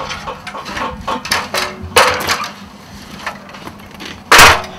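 Aluminium extension ladder knocking and clanking as it is set against a wall and climbed, with a sharp knock about two seconds in and a louder bang near the end.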